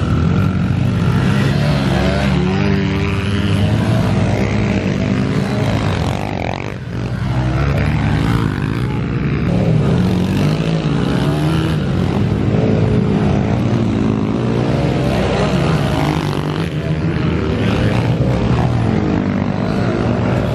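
Several small pit bike engines revving up and down together as the bikes ride laps of a dirt track, their pitches overlapping and rising and falling continuously, with a brief lull about six to seven seconds in.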